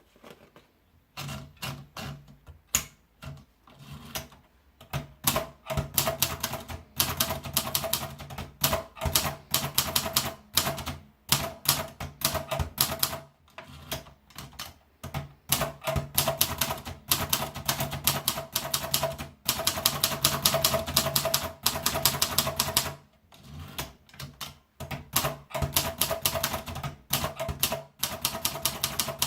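Torpedo 10/30 manual portable typewriter being typed on: quick runs of sharp key strikes with brief pauses between them, starting about a second in.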